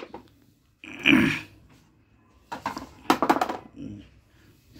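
Handling noise from a dirty plastic washing-machine part being picked up and knocked about on a concrete floor. There is a louder scraping sound about a second in and a quick run of sharp knocks around three seconds in.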